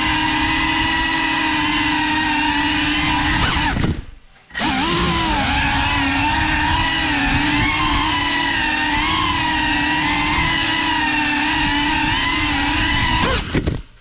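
GEPRC CineLog 35 cinewhoop's brushless motors and ducted propellers whining steadily in flight. The sound cuts out abruptly about four seconds in, then spools back up with the pitch wavering as the throttle changes, and cuts out again near the end.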